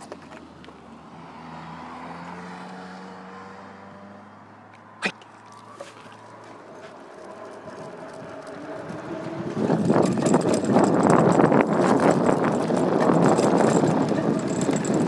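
Dog scooter with large air-filled wheels rolling fast over a dirt trail behind running huskies: a loud, rattling rumble that builds in about two-thirds of the way through. Before it, faint passing road traffic with one sharp click about five seconds in.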